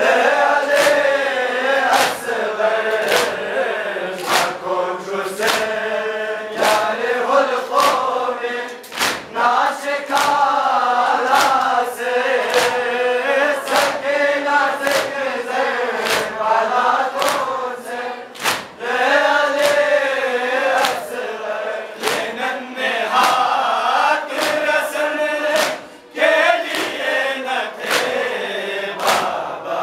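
Group of men chanting a Muharram noha in unison over a microphone, with the crowd's matam, open hands slapping chests, keeping a steady beat of sharp slaps about one and a half a second.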